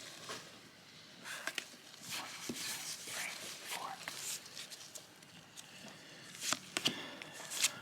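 Pokémon trading cards being handled and slid apart by hand: faint rustling with scattered short card flicks, a few sharper ones near the end.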